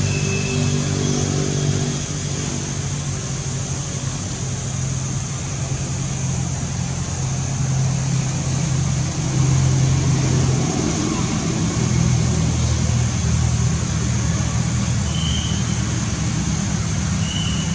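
A steady engine hum with a broad noise over it, like a motor vehicle running close by. A brief high squeak comes near the start and two more near the end.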